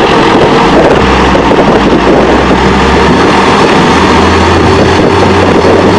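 Heavy diesel machinery engines running with a loud, steady rumble and a dense wash of noise over it.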